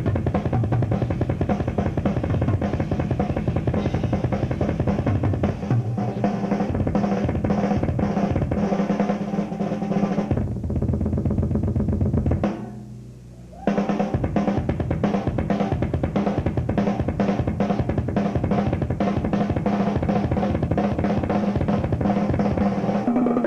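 Drum solo on a rock drum kit played live: fast rolls across snare and toms over bass drum. The playing drops away for about a second midway, then comes back in full.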